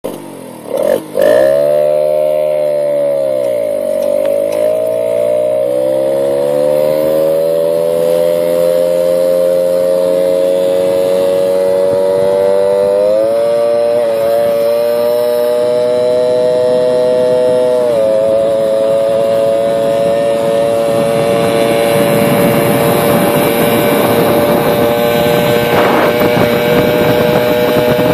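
A Peugeot 103 moped's 50cc two-stroke single with an unrestricted exhaust revs up about a second in. Its pitch dips, then climbs steadily as the moped pulls away and accelerates. The note jumps higher about halfway through, drops a little a few seconds later, then holds steady at cruising speed while wind rush builds toward the end.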